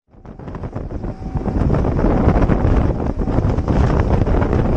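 Wind buffeting the microphone over the engine and water noise of an RNLI lifeboat running at speed, building up over the first second and then holding steady.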